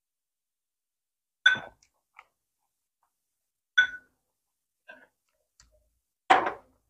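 A metal spoon clinks against a glass bowl twice with a short ring while dipping sauce is ladled in. A few faint taps follow, then a duller knock near the end.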